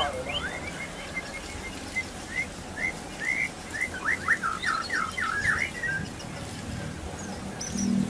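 White-rumped shama (murai batu) singing: a string of short chirps and whistled notes that quickens into a fast run of sharp notes about four to five seconds in, then trails off.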